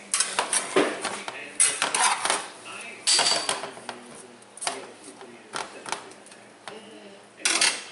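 Metal spatula clinking and scraping against a skillet as a tortilla is lifted and turned in the pan, in several separate bursts of clatter, one with a brief metallic ring about three seconds in.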